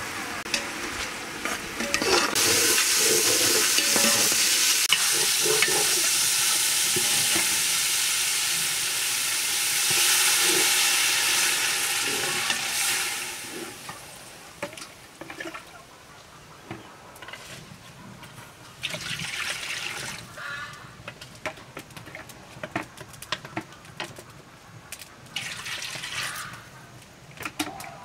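Curry boiling hard in a metal cooking pot, a loud steady bubbling hiss that fades out after about thirteen seconds. After that, quieter scattered clicks and knocks.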